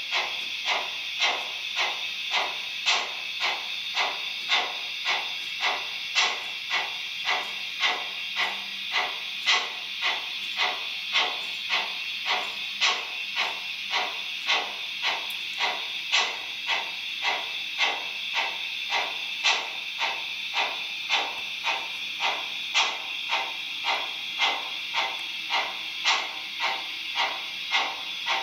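Model steam locomotive's simulated exhaust: slow, even chuffs, about one and a half a second, over a steady steam hiss, as of a locomotive working at low speed.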